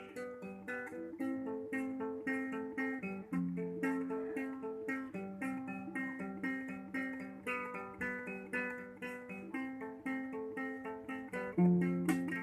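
Acoustic guitar playing a picked introduction, a steady run of plucked notes at about three to four a second.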